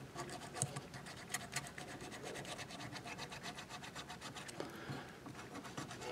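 220-grit sandpaper rubbed by hand over a carved wax ring in a quick, uneven run of short scratchy strokes, smoothing the roughed-in carving. The sound is faint.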